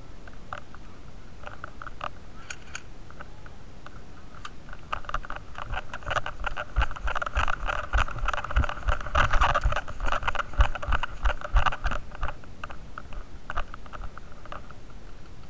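Scraping and rustling of clothing and gear against a body-worn camera's microphone during walking, with dull footfall thumps. It swells about a third of the way in, is loudest through the middle, and dies down near the end.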